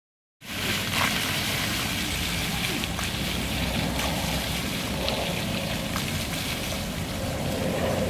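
Ground-level plaza fountain jets spraying and splashing onto wet paving: a steady rushing hiss of falling water, with a low rumble underneath, starting about half a second in.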